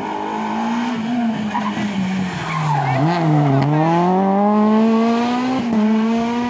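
Rally car engine coming off the throttle into a hairpin with the tyres squealing, the revs dropping to a low point about three seconds in, then accelerating hard out of the corner with rising revs and a brief gear-change dip near the end.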